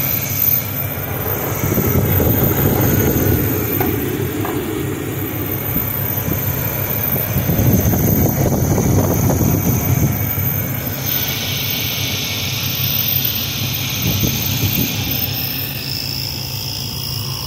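The 1986 Chevrolet Caprice Classic's carbureted engine running steadily after a cold start, having sat unstarted for a year.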